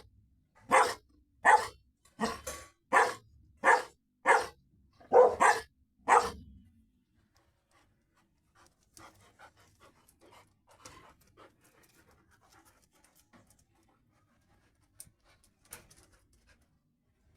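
A large dog barking repeatedly, about nine barks a little under a second apart, then stopping; faint scattered sounds follow.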